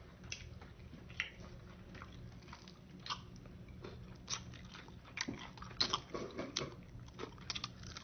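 A person biting into and chewing a chicken wing close to the microphone: a string of short wet clicks and smacks of mouth and teeth on the meat, busiest about five to seven seconds in.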